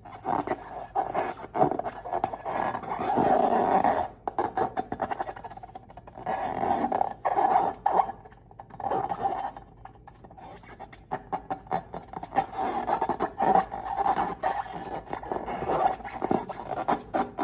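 Slime being squeezed and worked by hand: irregular, sticky crackling and squelching pops that come in clusters, with short pauses between them.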